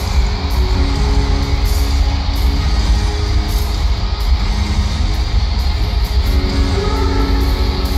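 Live rock band playing in an arena, with electric guitar prominent over heavy booming bass and held guitar notes.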